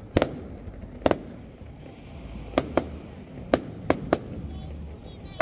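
Fireworks display: aerial firework shells bursting in about seven sharp, irregularly spaced bangs over a steady low rumble, two of them close together near the middle and two more near the end.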